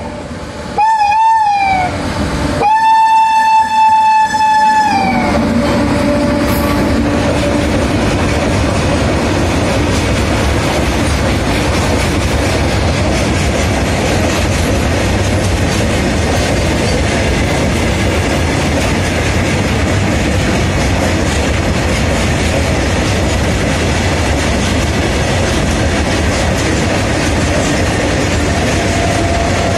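WAG-9H electric freight locomotive's horn sounds a short blast, then a longer one that falls in pitch as it ends. After that, the steady rolling noise of the locomotive and freight wagons passing continues.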